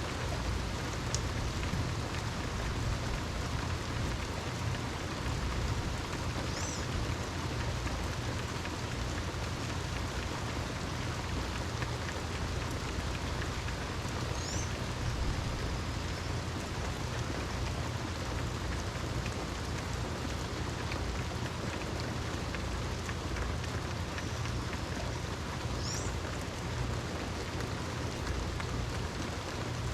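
Steady, heavy rain falling, a dense even hiss with a low rumble beneath it. A few short, high chirps sound through the rain now and then.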